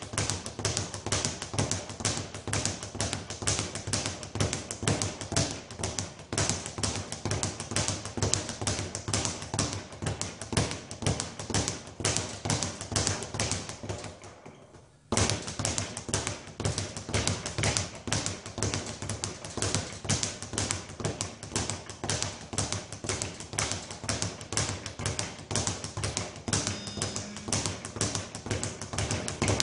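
Speed bag being punched in a fast, steady rhythm, rattling against its overhead rebound platform. The hitting breaks off for about a second halfway through, then resumes at the same pace.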